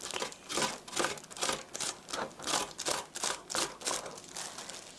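Cucumber being shredded on a stainless-steel box grater: a steady run of rasping strokes, about two a second, as the cucumber is pushed down across the blades.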